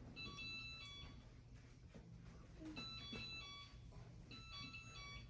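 Short electronic tone pattern, a few steady beeps stepping in pitch, played three times in a row and fainter each time.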